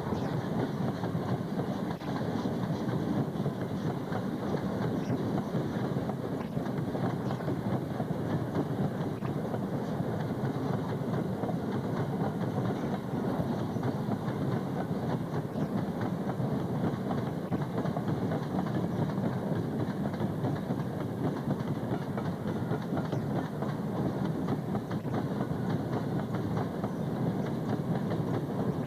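Freight train of tank wagons rolling past: a steady rumble of wheels on rails, with occasional clicks as the wheels cross rail joints.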